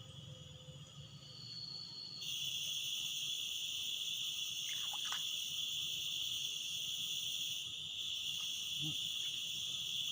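Loud, steady high-pitched insect chorus from the swamp forest, which jumps suddenly louder about two seconds in as another insect joins, then holds without a break.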